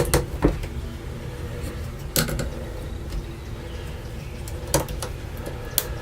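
Several sharp clicks and knocks, spaced irregularly, from the shower fixture's parts being handled while its fittings are closed off, over a steady low hum.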